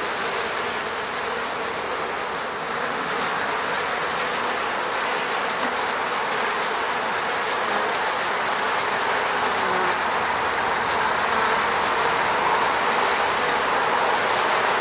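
A swarm of honeybees buzzing around their hive: a dense, steady hum of many wings that grows a little louder toward the end.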